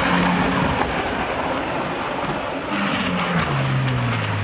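Stand-up jet ski racing across the water at speed, its engine running high over a hiss of spray; the engine pitch drops about three and a half seconds in.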